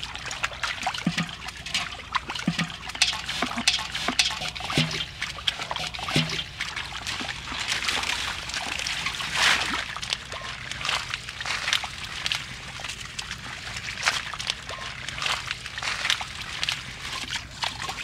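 Bare feet and hands splashing and sloshing through shallow, muddy water in an irregular run of small splashes and trickles.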